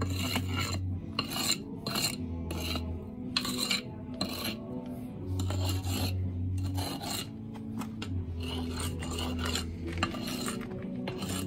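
Steel mortar jointer scraped along the fresh mortar joints of a concrete block wall, striking the joints in repeated short strokes, about two a second.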